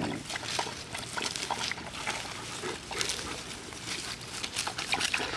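A dog lapping water from a stainless steel bowl: quick, irregular wet slurps and splashes.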